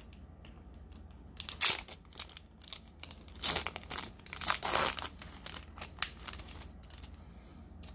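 Foil Pokémon booster pack crinkling and tearing as it is opened by hand, in irregular rustling bursts, the longest from about halfway through.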